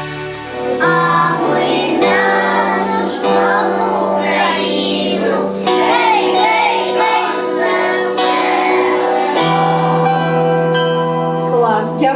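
Music: a song with high singing voices over held bass notes that change a few times.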